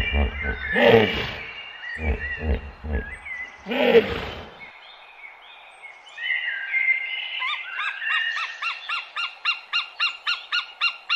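Birds chirping and calling. A low pulsing sound runs underneath for about the first four and a half seconds, and near the end one bird repeats a quick chirp about three times a second.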